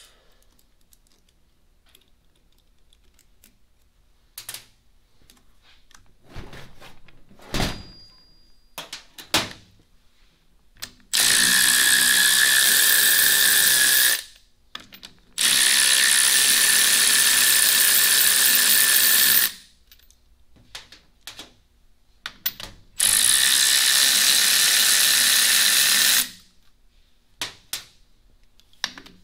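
Cordless 3/8-inch electric ratchet running in three bursts of three to four seconds each with a steady whine, spinning the Nylock nuts off the bottom of the transmission's drop-gear cover. Before the first burst come light clicks and a couple of metallic clinks of nuts and tools being handled.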